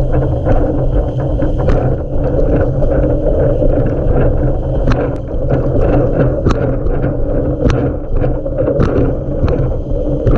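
Wind buffeting the microphone of a camera mounted on a windsurf mast, over the rush of a windsurfer planing fast through choppy water. Short sharp knocks recur throughout.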